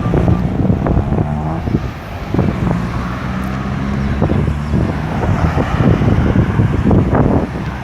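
Road traffic: vehicle engines running with a steady low hum, and the noise of cars moving past.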